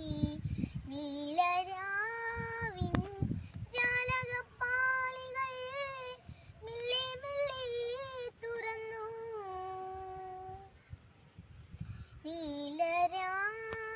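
A young girl singing solo and unaccompanied, in phrases of long held notes that bend and waver in pitch. The singing breaks off for about a second and a half near the end, then a new phrase starts.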